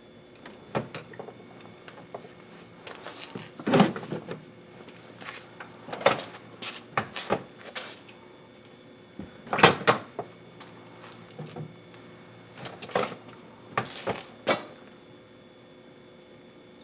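Irregular knocks and clatter, like things being picked up and set down, over a faint steady hum.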